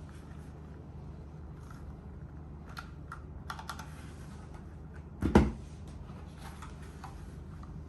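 Royal Kludge RK61 mechanical keyboard with Sushi Koyu keycaps being typed on sparsely: scattered single key clacks with gaps between them, and one louder, deeper keystroke about five seconds in.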